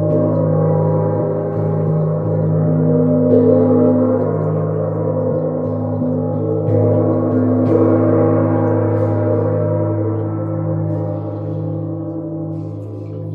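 Gong ringing in a long, humming wash of many tones, struck again about three, six and a half and seven and a half seconds in, each stroke swelling the sound.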